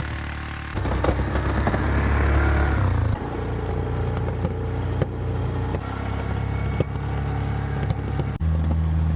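ATV (four-wheeler) engine running under load as it pushes heavy, wet snow with its plow. The engine note gets louder and changes about a second in, then steadies.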